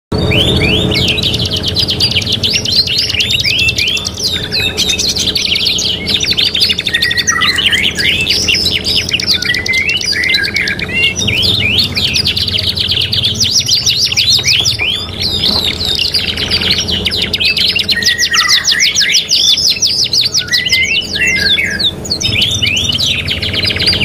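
A song-tutoring mix of several songbirds singing over one another: a canary's rapid rolling trills layered with the songs of a blackthroat and a murai ciblek (bar-winged prinia). Fast chirps and quick repeated note runs follow one another without a break, over a faint steady low hum.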